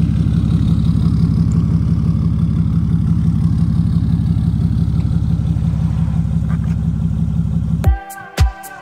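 Pickup truck's engine idling steadily. Near the end it gives way to electronic music with a regular kick-drum beat.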